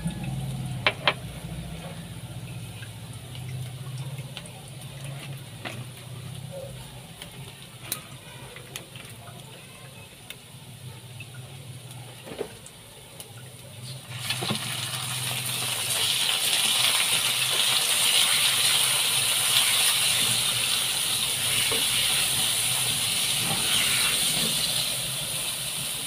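Squid pieces scraped into a hot wok of sautéed onion and garlic set off a loud, sudden sizzle about halfway through, which carries on as a spatula stirs them. Before that there is only a low steady hum and a few light knocks.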